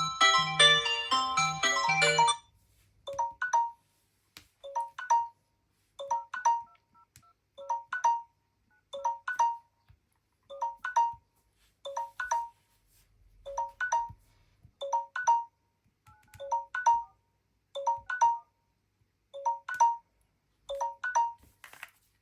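A busy melodic smartphone ringtone ends about two seconds in. A different phone tone follows: a short figure of a few clear notes, repeated about every one and a half seconds with silence between.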